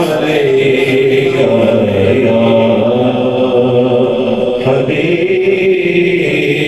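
A man reciting a naat, singing long held melodic lines into a handheld microphone.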